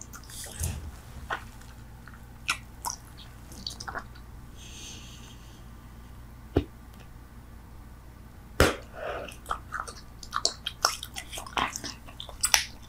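Bubble gum chewed close to the microphone: wet clicks and smacks, sparse at first with a quieter stretch in the middle. A sharp loud click comes about two-thirds of the way in, followed by a quick run of chewing clicks.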